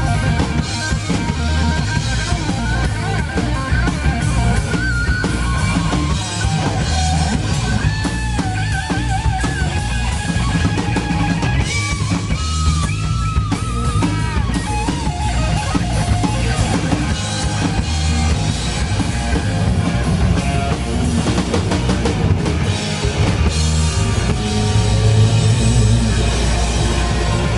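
Live rock band playing loud, with a drum kit and electric guitar. From about eight to fourteen seconds in, a lead line bends and wavers in pitch over the band.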